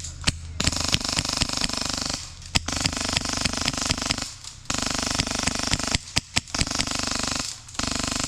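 Airsoft electric gun (AEG) firing on full auto: five bursts of about a second to a second and a half each, the gearbox motor buzzing with rapid clicking shots, with short pauses between bursts, after a single semi-auto shot at the very start.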